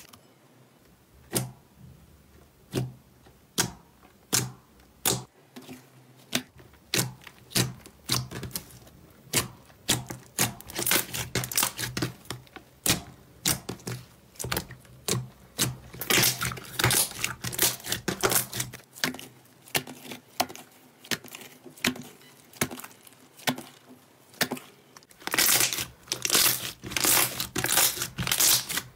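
Pink fluffy slime being squished, stretched and pressed by hand, giving sharp sticky clicks and pops. A few single clicks at first, then quick crackling runs that thicken again near the end.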